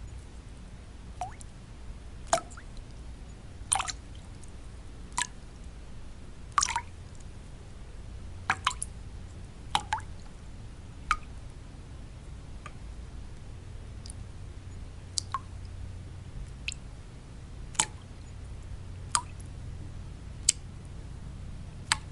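Water drops falling one at a time at irregular intervals, about one a second, some with a short upward-gliding plink, over a steady low white noise.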